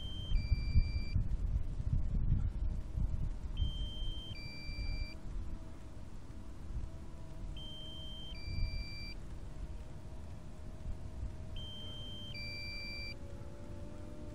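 Drone controller's electronic warning beep: a higher tone stepping down to a lower one, repeating about every four seconds. Underneath is a steady faint hum, with a low wind rumble on the microphone in the first few seconds.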